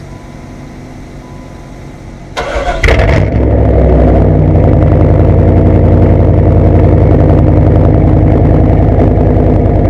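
1994 Camaro Z28's LT1 V8 with an SLP Loudmouth LM1 exhaust cranking over about two and a half seconds in, catching with a brief loud flare, then settling into a steady, loud idle.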